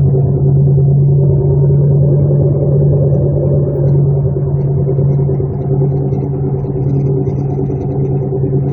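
Badly worn wheel bearings on a 1999 Chevrolet Malibu droning while the car is driven: a loud, steady low hum with overtones. The bearings are close to failing and need fixing immediately.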